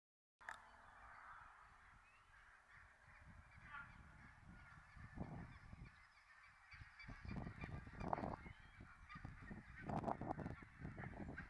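Geese honking, with scattered calls at first and more frequent ones in the second half, over a low rumble.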